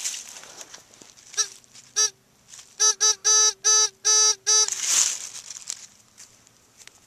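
Handheld metal-detecting pinpointer probe sounding a quick run of about six short, steady-pitched beeps in two seconds, after a single blip a moment before, signalling a metal target in the loose soil. Rustling of hands in dirt and dry leaves at the start and just after the beeps.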